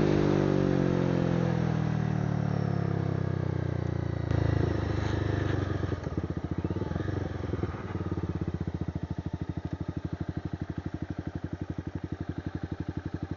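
Honda CBR300R single-cylinder engine through an aftermarket exhaust, its revs falling steadily for about six seconds. It then settles into an idle with an even pulsing beat.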